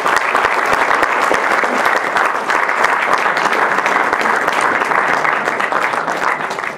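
Audience applauding: dense, steady clapping from many hands, thinning out near the end.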